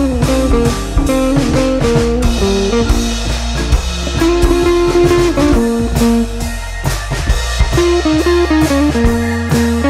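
Background music: guitar with a drum kit keeping a steady beat, in a bluesy rock style.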